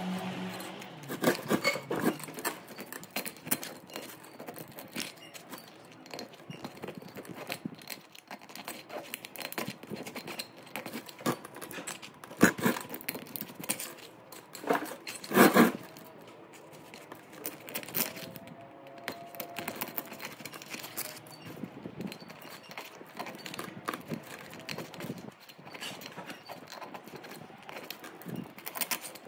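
Irregular clicking and clattering of hand work on an electric motor's stator while its burnt copper windings are stripped out, with two louder knocks about 12 and 15 seconds in.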